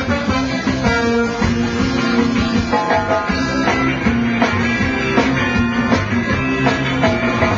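Live reggae band playing an instrumental stretch between sung lines, with guitar over a steady beat.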